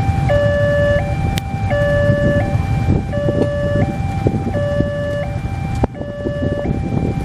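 Railway level-crossing warning alarm sounding a repeating two-tone signal, alternating a lower and a higher tone about two-thirds of a second each, over the low rumble of idling motorcycles waiting at the crossing.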